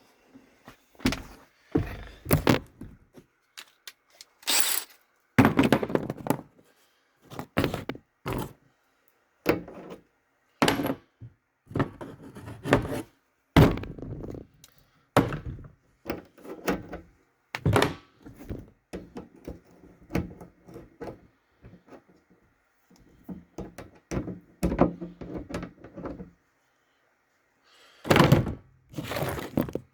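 Irregular thunks, knocks and clatter from hands working with parts and tools on a diesel heater's plastic fuel tank, with a louder rattle of handling near the end.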